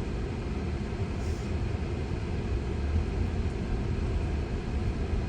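Steady low rumble inside a Tesla's cabin while driving slowly: tyre and road noise, with no engine note.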